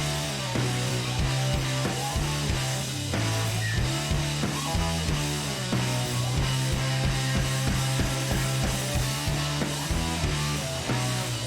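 Background rock music with guitar, bass and a drum kit keeping a steady beat.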